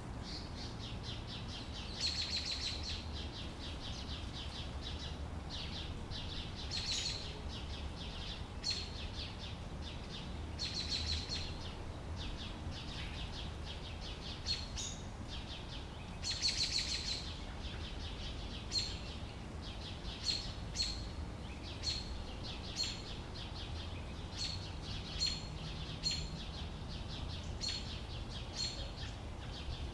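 Outdoor summer-day ambience: small birds chirping, with short trills now and then and, in the second half, single chirps repeating about once a second, over a low steady rumble.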